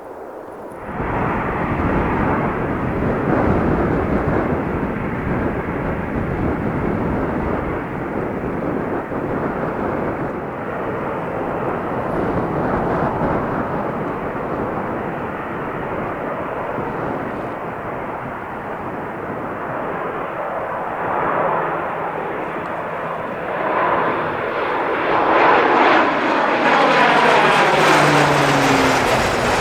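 Airliner engines running loud, a dense noise that comes in suddenly about a second in. In the last few seconds the engine whine falls in pitch as the aircraft passes.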